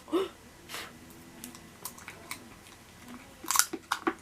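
Acrylic fingernails clicking and scraping on a small plastic loose-powder jar while trying to open it: a scatter of sharp ticks, the loudest cluster about three and a half seconds in.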